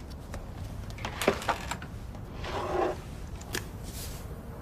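Handling noises: a few light clicks and knocks and a short rustle, over a low steady room hum.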